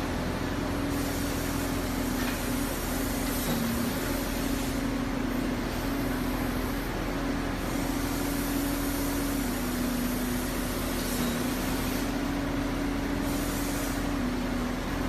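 Mini-excavator engine running steadily under a constant noisy wash, its pitch dipping slightly and recovering several times.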